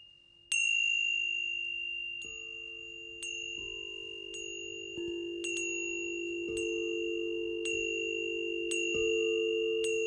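Metal chimes struck repeatedly, about once a second, each ringing on. A high, steady ring sits over several lower sustained tones that shift in pitch at some of the strikes. The first strike comes about half a second in, after a brief quiet.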